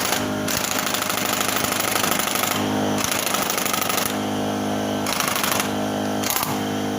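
Pneumatic impact wrench hammering in several bursts, loosening the castle nut on a Honda Biz 110i's primary clutch, over the steady hum of an air compressor running.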